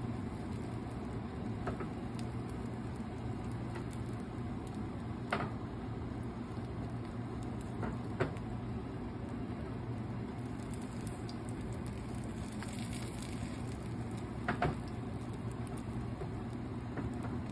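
Beaten eggs cooking in a nonstick frying pan on the stove with a steady low hiss and hum, and a few light clicks and scrapes of a plastic slotted spatula against the pan as it lifts the omelette's edges.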